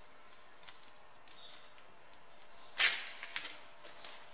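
Masking tape and masking paper being handled and pressed onto a CV joint: soft crackles and clicks, with one louder, sharp rustle a little under three seconds in.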